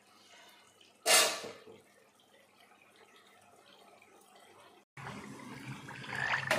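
A short splash of water in a pot of water and whole spices about a second in, over faint room noise. A louder, rougher stretch of noise starts near the end.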